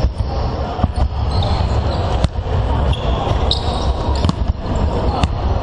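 Several basketballs bouncing on a wooden gym floor during a warm-up, giving irregular overlapping thuds that echo through a large hall. Short high squeaks from basketball shoes on the floor come now and then.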